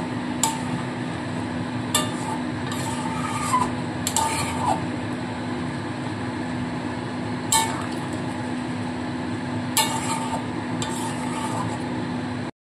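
A metal spatula stirring mutton curry in a kadai, scraping through the thick gravy, with several sharp clinks of spatula on pan. Under it runs a steady hum. The sound cuts off abruptly just before the end.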